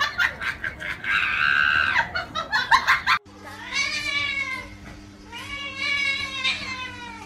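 A cat giving two long, drawn-out meows, each rising then falling in pitch, over a steady low hum. Before them come about three seconds of rapid clicks and a high whine, ending in an abrupt cut.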